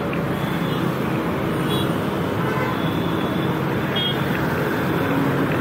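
Steady street traffic: motorbikes, auto-rickshaws and cars running past on a busy road. A brief high tone sounds about four seconds in.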